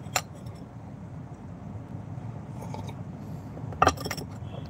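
A few sharp clicks and clinks from hands handling small hard objects right at the microphone: one click just after the start and a louder cluster of clicks near the end, over a steady low hum.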